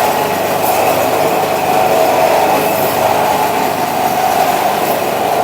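Electric meat-cutting saw running steadily as it cuts a goat carcass into curry-cut pieces.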